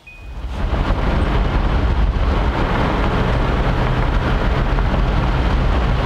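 Steady road and wind noise of a vehicle driving on a highway, heard from inside the cab, fading in over the first second.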